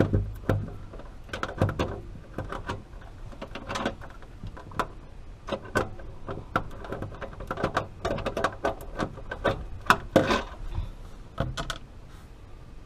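Irregular clicks and taps of a 1/4-inch hand tool unscrewing a nut from the plastic inner wall of a refrigerator.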